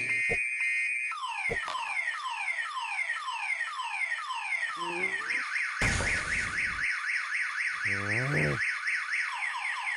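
Car alarm siren cycling through its tones: a repeated falling whoop about three times a second, switching about six seconds in to a fast up-and-down warble.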